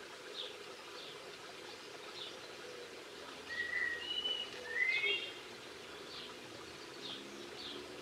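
Small songbirds calling: short high call notes repeated throughout, with a brief run of louder clear whistles, one of them rising, about halfway through, over a steady background hiss.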